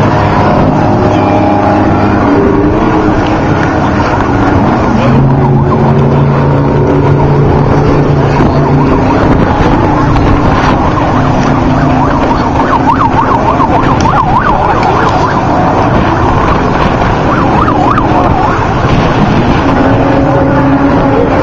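Engines of Class 1450 off-road race trucks running hard, revving up and down. The pitch wavers quickly for a few seconds past the middle.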